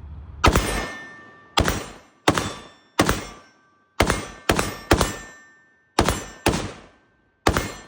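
A string of about ten gunshots from a semi-automatic gun at an uneven pace, some in quick pairs, each with a short ringing tail.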